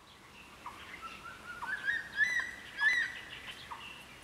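Birds chirping: short, curved calls repeated every half second or so over a soft background hiss. The sound fades in from silence and is loudest about two to three seconds in.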